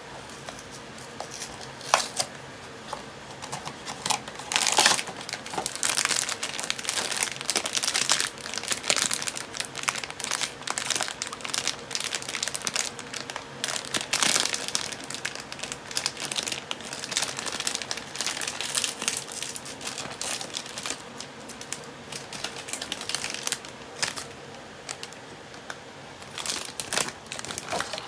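Crinkling and crackling of a blind-box foil pouch being squeezed, worked and torn open by hand, in dense irregular crackles. A few sharper clicks come near the start, from the small cardboard box being handled.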